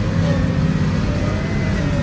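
A motor engine running steadily, its pitch wavering slightly.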